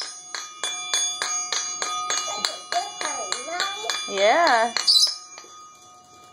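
Metal triangle struck repeatedly with a wooden stick, about three strikes a second, each hit ringing on. About four seconds in a voice sings a wavering note over it; the strikes stop soon after and the ringing fades.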